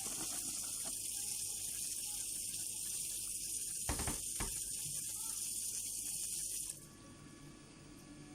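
Kitchen tap running steadily into a sink, with a few light knocks of items in the sink about halfway through; the water cuts off suddenly near the end as the tap is shut.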